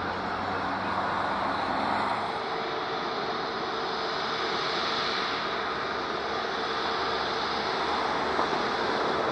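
Airbus A320neo's CFM LEAP-1A turbofan engines running at taxi power as the jet taxis and turns: a steady rush with a faint, steady whine.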